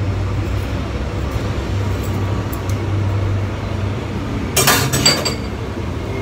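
A quick cluster of clinks from kitchenware, with a brief ringing tone, about four and a half seconds in, over a steady low hum.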